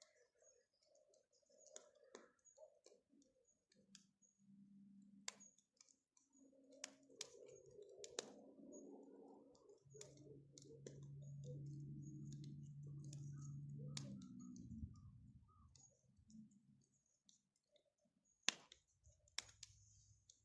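Faint bonfire crackling: scattered sharp snaps and pops at irregular intervals, with a low steady hum for a few seconds around the middle.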